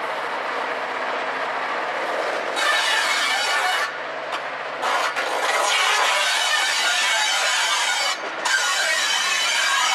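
Class 55 Deltic locomotive's two Napier Deltic two-stroke diesel engines idling at a standstill, a steady rasping run. A louder hiss comes in a couple of seconds in and drops out briefly twice.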